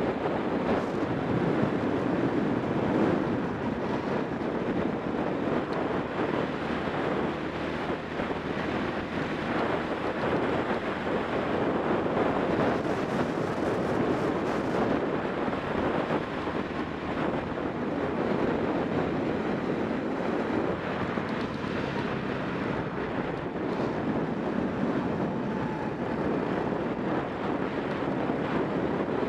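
Racing kart engine running at speed, mostly buried under heavy wind buffeting on the onboard camera's microphone, as a steady dense rush of noise.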